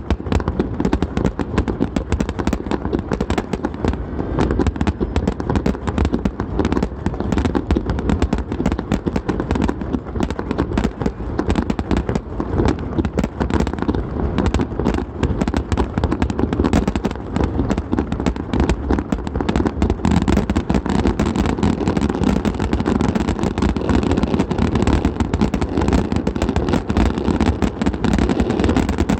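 Fireworks grand finale: a dense, unbroken barrage of overlapping shell bursts and crackle, many bangs a second with no pause.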